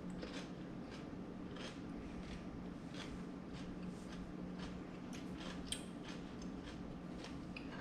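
Faint, crisp crunching of a mango habanero pickle being chewed, in irregular clicks a few times a second, over a steady low hum.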